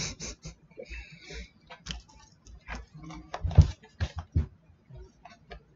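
Cardboard box of a portable speaker being handled in the hands: a run of rustles, scrapes and light taps, with a few louder knocks about three and a half to four and a half seconds in.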